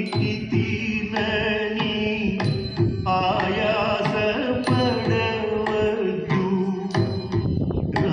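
Background music in South Indian classical style: a wavering melody over steady hand-drum beats.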